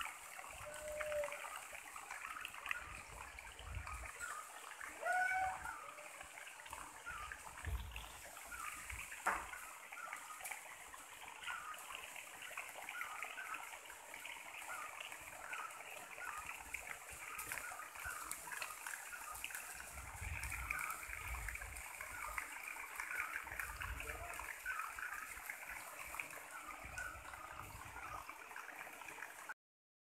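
Rainforest ambience: a dense, unbroken texture of short chirps and calls under a high hiss, with a few clearer gliding notes in the first six seconds and occasional low rumbles.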